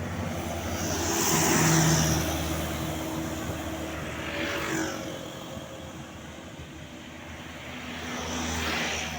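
Road traffic passing close by: three vehicles swell up and fade away one after another, the loudest about two seconds in.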